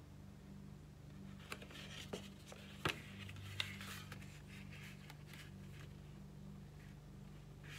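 Pink cardstock being handled by hand: a run of rustles and a few sharp clicks as the folded piece is picked up, turned over and set down flat on a craft mat, then pressed. A steady low hum runs underneath.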